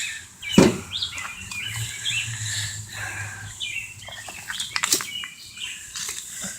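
Small birds chirping, with a sharp knock about half a second in and a few light clicks near the end.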